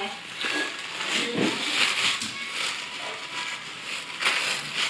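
Plastic packaging wrap and bubble wrap crinkling and rustling in uneven bursts as hands pull it off an item in a cardboard box.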